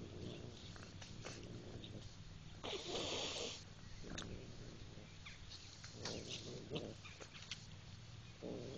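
Cat eating a whole raw fish: chewing with many small crunching clicks. A louder noisy burst lasting under a second comes about three seconds in.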